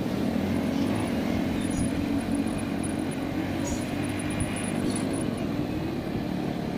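Motorcycle engine running steadily at low speed, heard from the rider's seat, with road and wind noise over the microphone.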